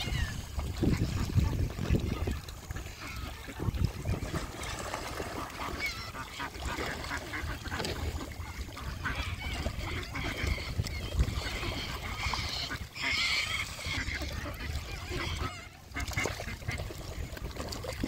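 Geese honking, a run of repeated calls that grows loudest about thirteen seconds in.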